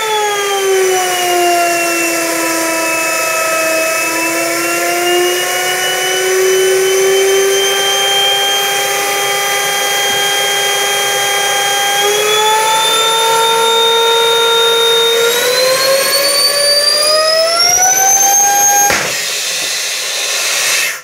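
Compressed-air Tesla turbine with lexan blades whining at very high speed. Its pitch sags, holds, then climbs steeply over the last few seconds. About 19 seconds in, the whine cuts off with a sharp crack as the blades burst apart, leaving a rush of escaping air.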